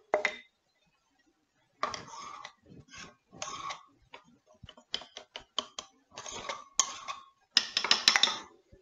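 A clear glass bowl knocked and scraped against the rim of a stainless steel stand-mixer bowl as flour is tipped in. It comes as a series of separate clinks, taps and short scrapes, with a quick run of sharp clicks about halfway through and the loudest scraping near the end. The mixer motor is off.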